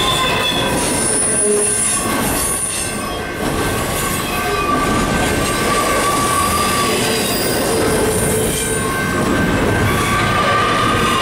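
Intermodal freight train of double-stack container well cars rolling past close by: a steady, loud rumble and rattle of steel wheels on rail, with wheel squeal at several pitches that comes and goes.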